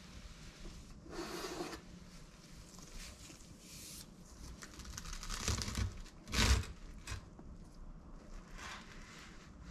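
Gloved hands handling a toasted sandwich and a kitchen knife cutting through it on a wooden cutting board: crisp, scratchy strokes of the blade through the toasted bread. There is one loud thud about six and a half seconds in.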